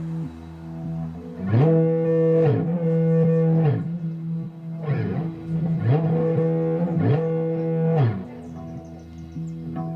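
Live instrumental music on a string instrument: held notes that slide slowly up in pitch and back down, twice.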